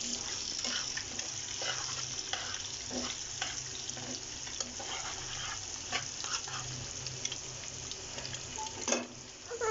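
Food sizzling in a hot pan, a steady hiss with scattered crackles and small clicks, and a sharper knock near the end.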